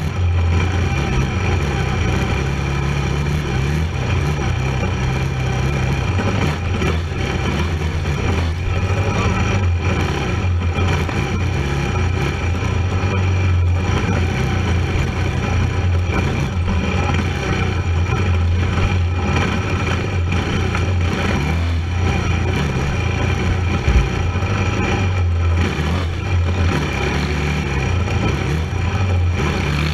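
Racing ATV engine running steadily under load during a cross-country hare scramble, with a single sharp knock about 24 seconds in.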